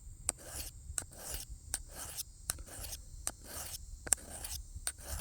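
A knife blade stroked quickly across a diamond sharpening file, about two rasping strokes a second, with light clicks as the blade comes off and sets down again between strokes.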